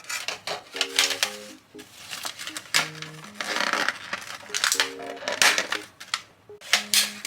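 Light, bouncy background music with short plucked-sounding notes, over close crinkling and crackling of plastic packaging and small knocks as groceries are handled and packed away.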